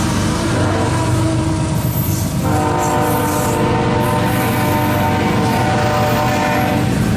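Union Pacific freight locomotive horn blowing a held chord over the heavy rumble of GE diesel locomotives and double-stack well cars rolling past. A stronger, long horn blast starts about two and a half seconds in and cuts off near the end.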